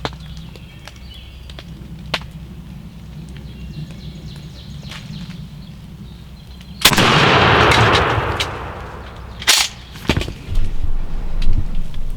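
A single shotgun blast about seven seconds in, ringing out with a long echo. About three seconds later comes a brief sharp crack, then irregular rustling and thumping.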